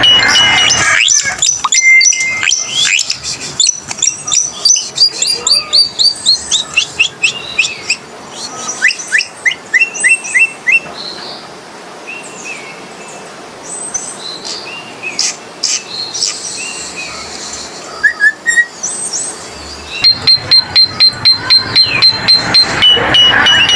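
Coleto (Sarcops calvus), a Philippine starling, calling: a varied string of quick chirps and slurred whistled notes, with fast runs of rapidly repeated notes at the start and near the end.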